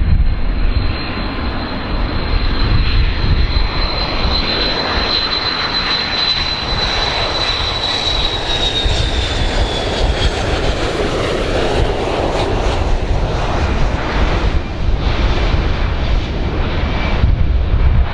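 Boeing 727's three rear-mounted turbofan engines whining and rumbling as the jet flies low on final approach. The high steady whine dips in pitch about eight to ten seconds in as the plane passes overhead.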